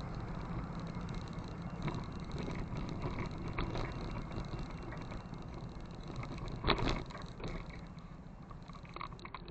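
Motorcycle engine idling steadily while stopped, with a sharp knock about two-thirds of the way through.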